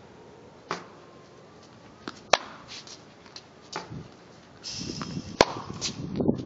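Tennis ball struck by racquets on a hard court: two sharp hits about three seconds apart, the second the loudest, with a few fainter knocks of the ball between them. A hissing noise sets in for the last two seconds.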